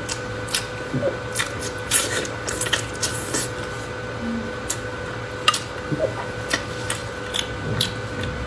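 Close-miked chewing and lip smacking on skin rolls: irregular wet clicks and squishes, several a second, over a faint steady hum.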